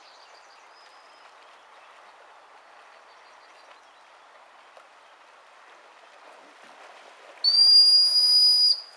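A single long, steady, high-pitched blast on a dog whistle, starting and stopping sharply, sounded about seven and a half seconds in.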